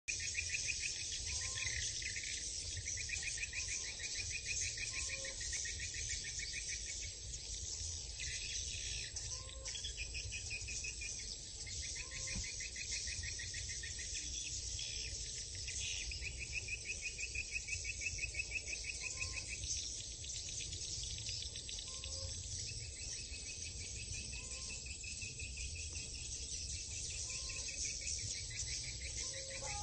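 Swiftlets chirping at a swiftlet farm: rapid buzzy trills of a few seconds each, one after another, with a short rising note about every two seconds and a steady high hiss underneath.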